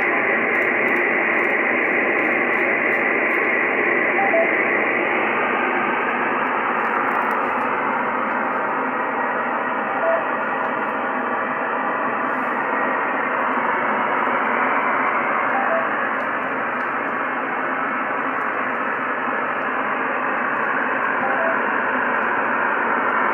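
Shortwave amateur radio receiver tuned to the 10-metre band, putting out a steady hiss of band noise through its narrow voice passband, with no clear signal coming through.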